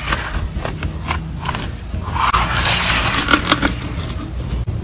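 Small red Spider-Man toy car's plastic wheels scraping over rough concrete as it is driven into a hollow plastic bowling pin and knocks it over, with a run of sharp clicks and clatters.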